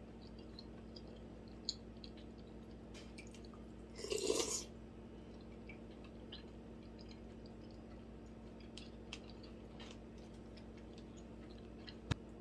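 Close-miked mouth eating sounds: faint chewing with small scattered clicks. One louder half-second sound comes about four seconds in, and a single sharp click near the end.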